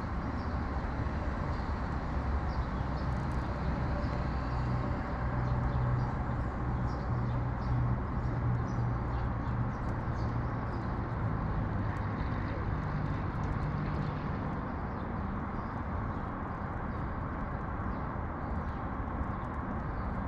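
Steady urban traffic noise, with a vehicle engine's low hum strongest through the middle and fading later on. Faint short high ticks sound over it.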